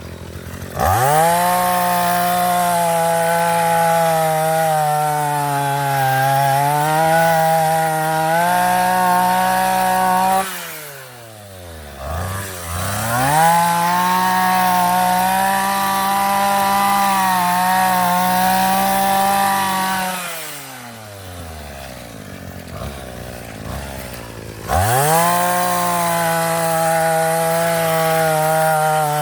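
Vulcan earth auger's small petrol engine revved to full throttle in three runs, its pitch dipping a little at times under the load of boring a fence-post hole in soil. Between runs the engine drops back to idle in a falling glide.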